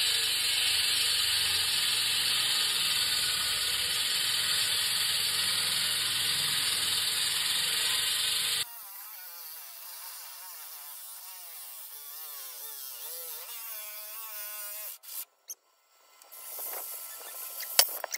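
24-inch hydraulic concrete hand saw with a diamond blade cutting into a concrete wall: a loud, steady grinding noise that cuts off abruptly about eight and a half seconds in. A much quieter wavering whine follows, then a few sharp clicks near the end.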